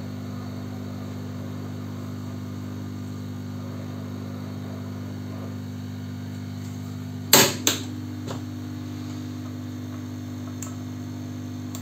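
Steady low electrical hum. About seven seconds in come two sharp knocks close together, like a hand tool being set down on a workbench, then a faint tick or two.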